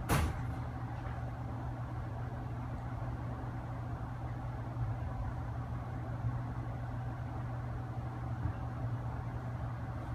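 Steady low machine hum with a sharp click right at the start.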